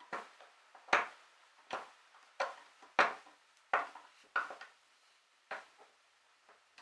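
Sailing winch drum turned by hand, its ratchet pawls giving sharp metallic clicks, about ten of them at uneven spacing.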